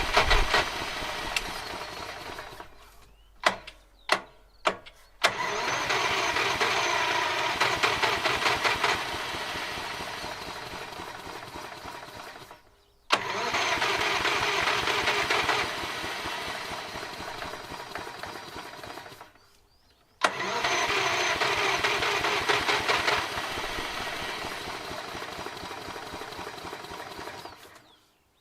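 Victa Ultimate petrol lawn mower being started by its battery push-button starter in repeated attempts: three short bursts, then three long tries of several seconds each that start strong, fade and stop without the engine keeping running. This points to a flat starter battery.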